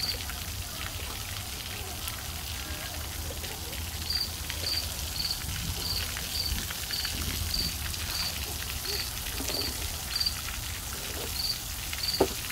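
Water-park water spraying and splashing: a steady, rain-like hiss of falling water. From about four seconds in, a short high chirp repeats roughly twice a second.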